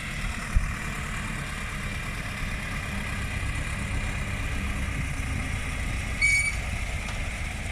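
Tractor engine running steadily, with a faint steady whine above the low rumble. A short knock comes about half a second in, and a brief high-pitched tone about six seconds in.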